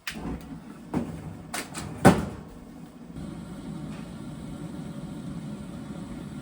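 Several knocks and clatters in the first two seconds, the loudest a little after two seconds, followed by a steady low rumble.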